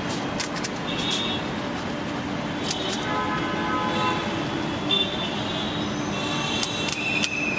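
Street traffic noise with several short vehicle horn toots, and a few sharp clicks over the top.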